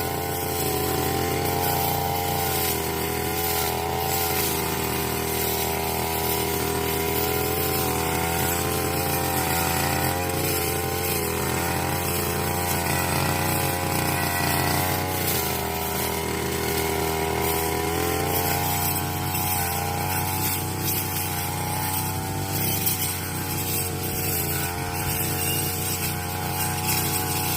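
Small engine of a grass-cutting machine (brush cutter) running steadily at speed, its pitch wavering slightly up and down.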